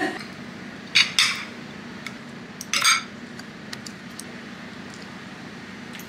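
Metal spoon and fork clinking against ceramic plates and bowls as food is served, a few sharp clinks, the loudest about a second in and near three seconds in, over a faint steady hum.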